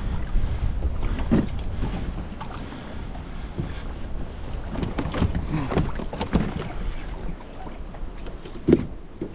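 Knocks and clunks of gear being handled on a plastic Hobie sit-on-top kayak as it is pulled alongside and climbed into, with a louder knock near the end. Wind rumbles on the microphone underneath, strongest in the first couple of seconds.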